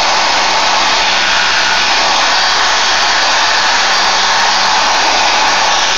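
An older Sears Craftsman dual-motion orbital sander running free in the air with no pad fitted: a loud, steady whirring hiss with a faint low hum beneath it. The sander is in working order.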